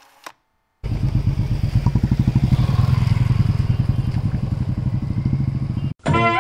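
Motorcycle engine running with a fast, even low thudding, starting about a second in and cutting off abruptly near the end.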